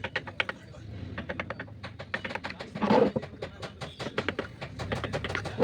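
Quick, irregular light taps and clicks, as of wood or tools being handled on a workbench, with two louder knocks, about three seconds in and at the end.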